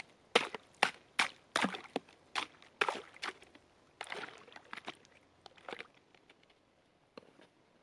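A rapid run of sharp chopping blows, two or three a second, that grows weaker and sparser and dies out about six seconds in, leaving a few faint clicks.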